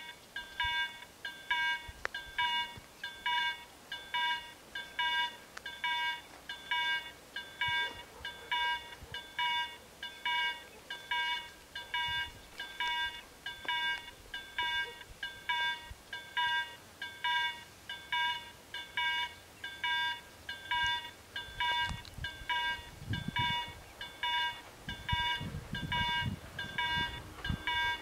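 Level crossing warning bells ringing in a steady repeating rhythm, about one and a half strokes a second, signalling that a train is approaching. A low rumble rises beneath the bells near the end as the train draws near.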